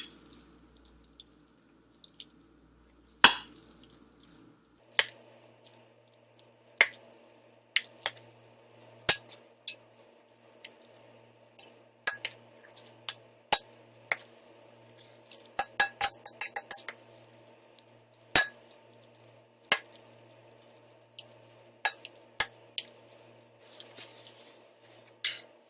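Scattered sharp clinks and taps of utensils against a dish as a bowl of saucy instant noodles is stirred, with a quick run of rapid clinks about sixteen seconds in.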